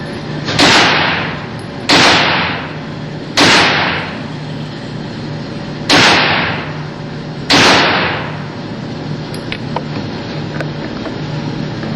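Five 9mm gunshots fired at an uneven pace over about eight seconds, each with a sharp crack and a reverberating tail of about a second; after the last shot only a steady background with a few faint clicks remains.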